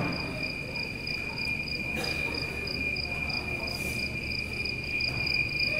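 Cricket trilling steadily: a continuous high-pitched tone with a faint regular pulsing, over a low background murmur.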